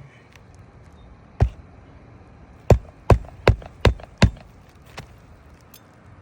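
Hammer driving a roofing nail into an asphalt shingle: a single blow, then a run of five quick blows about two and a half a second, and one light tap near the end.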